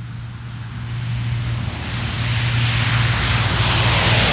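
HC-130J's four Rolls-Royce AE 2100D3 turboprops with six-bladed propellers at high power, a steady low propeller drone with rushing hiss, growing steadily louder as the aircraft rolls off the dirt strip and climbs out toward the listener.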